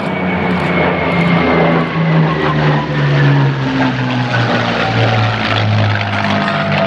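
Two Hispano Buchons' Rolls-Royce Merlin V12 engines droning as the pair fly past in formation, the engine note falling slowly in pitch as they go by.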